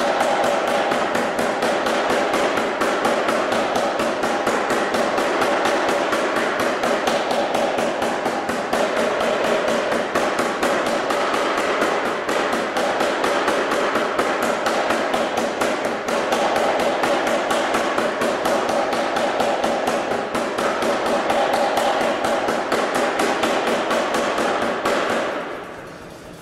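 Anyang 25 kg self-contained air hammer striking hot steel in continuous rapid blows, a steady pounding that stops near the end.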